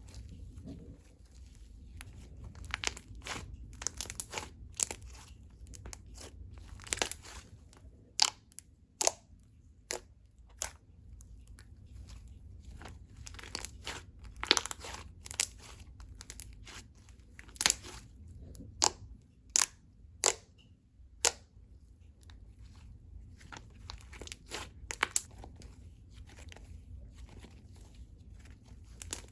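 Soft slime being squished, pressed and mixed by hand, giving irregular sharp sticky pops and crackles, sometimes several a second. The pops come thickest through the middle and thin out near the end.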